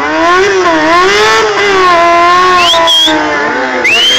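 Sportbike engine held at high revs, the pitch wavering up and down as the throttle is worked, spinning the rear tyre in a burnout; two short rising squeals come near the end.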